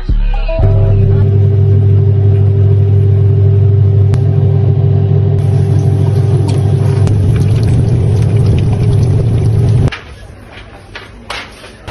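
Steady, loud low rumble of a running motor vehicle, cutting off suddenly about ten seconds in; a few faint clicks follow.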